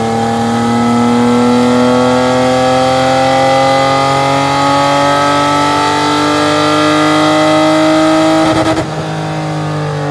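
A Spec E30 BMW race car's straight-six engine pulls under load on a chassis dyno, its pitch climbing steadily for about eight seconds. About eight and a half seconds in it stutters briefly, then the revs begin to fall as the throttle comes off.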